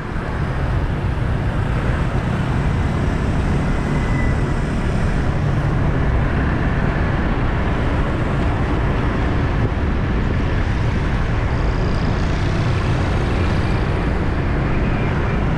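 Steady rush of wind and road noise from riding along a busy city street, with traffic around.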